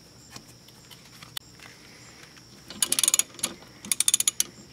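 Socket ratchet clicking in two quick runs as it spins out an already loosened 14 mm brake caliper bolt.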